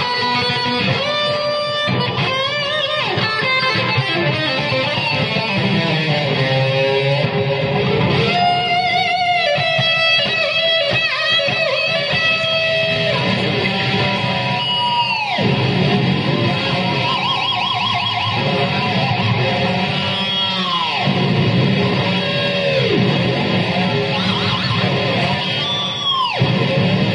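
Epiphone Les Paul Nightfall electric guitar played in fast lead lines, with three sharp downward pitch dives from its Floyd Rose Special tremolo arm: about halfway, about three quarters through and near the end. It is a tuning-stability test of the freshly set-up Floyd Rose.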